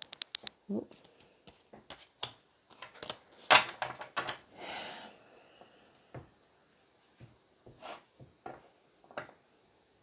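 Tarot cards being handled and dealt onto a tabletop: a quick run of card flicks at the start, then scattered soft taps and slides of cards on the table, with a short swish a little before the middle.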